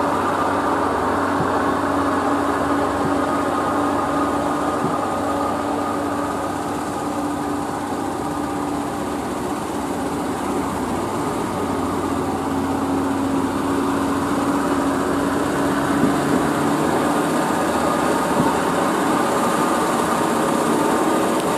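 Heavy diesel truck engine running steadily as the truck crawls along at low speed, with a whine that drops slightly in pitch midway and climbs again near the end.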